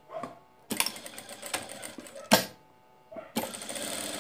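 Sewing machine stitching a seam through the lining fabric and zipper tape in two runs: about a second and a half of stitching, a sharp click, a short pause, then steady stitching again from just past three seconds.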